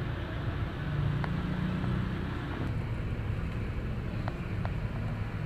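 Intercity bus's diesel engine idling, a steady low hum heard inside the passenger cabin, with a few faint ticks.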